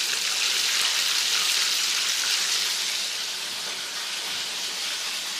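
Flour-coated chicken legs deep-frying in about two inches of hot oil in a cast-iron skillet: a steady sizzle that eases slightly after about three seconds.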